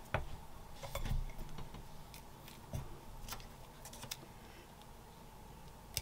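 A white ceramic sublimation mug being handled on a desk: scattered light knocks and clinks, with small crinkling clicks of paper and tape as a printed design is taped around it.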